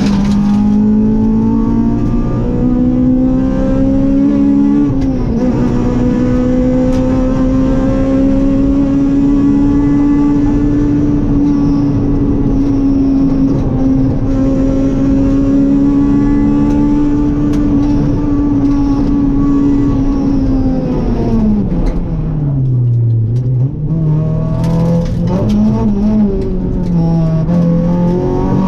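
Rally car's engine heard from inside the cockpit, held at high revs flat out with a brief shift about five seconds in. Near the end the revs drop sharply as the car slows, then rise again with a few quick jumps.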